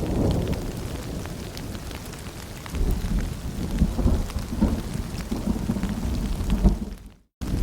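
Rain falling with scattered drops, under a low rolling thunder rumble that swells about three seconds in. The sound cuts out for a moment near the end.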